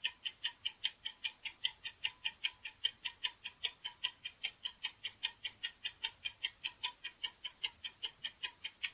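Countdown timer sound effect: a clock ticking quickly and evenly, about five ticks a second.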